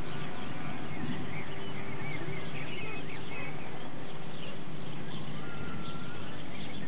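Small birds chirping in short twittering calls over a steady background hiss and low hum, with one longer held note about five and a half seconds in.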